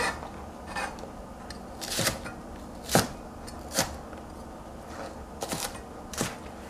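Chinese cleaver chopping green onions on a plastic cutting board: sharp knocks of the blade on the board, irregularly spaced about a second apart.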